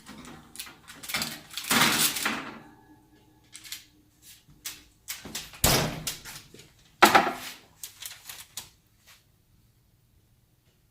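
Knocks and clatter of baking pans and utensils handled on a kitchen counter: a run of sharp impacts, the loudest about two, six and seven seconds in, with lighter taps after.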